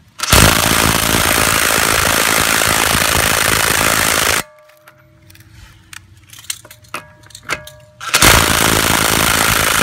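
DeWalt DCF886 brushless impact driver hammering on a car lug nut in a long burst of about four seconds, then a second burst near the end, with light clanks between. The lug nuts do not break loose.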